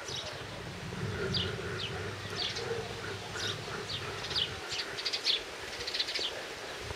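Small birds chirping: many short, high, falling notes in quick runs, busiest in the second half, over a faint steady hum.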